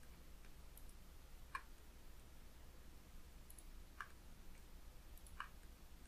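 Three faint computer mouse clicks, a second or more apart, over a low steady hum.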